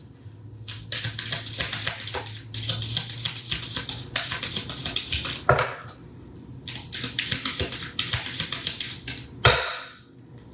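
A deck of oracle cards being shuffled by hand: three spells of dense, rapid card flicking and rustling with short pauses between, and a single sharper knock near the end.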